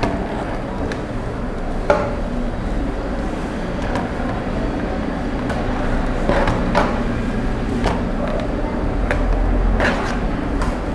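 Scattered light clicks and taps from handling cord, beads and scissors on a work table, over steady room noise. A low rumble of passing traffic builds near the end.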